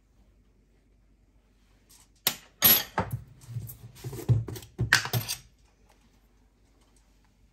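A quick run of clinks and knocks from kitchen utensils being handled, lasting about three seconds from about two seconds in, with a few dull thuds among the sharper clicks.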